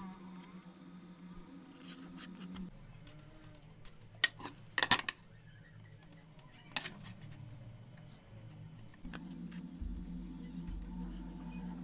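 Pencil and small hard objects handled on a plywood board: a few sharp clicks and taps near the middle, over a steady low hum.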